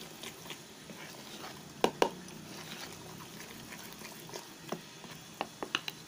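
Spoon stirring thick dhokla batter in a metal bowl: soft scraping, with a couple of sharp clinks of the spoon against the bowl about two seconds in and a quick run of clinks near the end.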